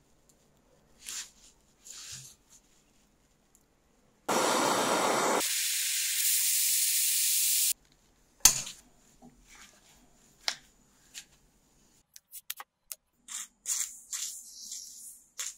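Aerosol spray can hissing in one long spray of about three seconds, fuller for its first second and then thinner and higher. Light metallic clicks and taps follow, and a shorter spray hisses near the end.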